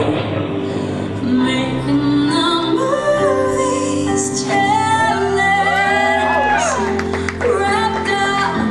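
A song playing, with a female voice singing held and sliding notes over a sustained accompaniment.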